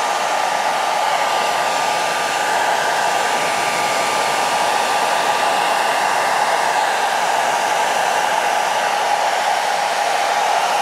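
Hand-held hair dryer blowing steadily on a rain-wet camera and lens, pushing water out of the small gaps. It makes a constant rushing hiss with a faint steady whine.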